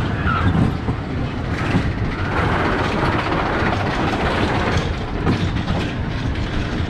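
Steel bobsled roller coaster train running on its track: a steady, loud rumble with irregular clattering.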